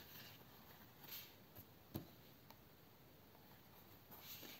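Near silence with faint rustling of yarn and a crochet hook being worked through crocheted fabric, and one small click about two seconds in.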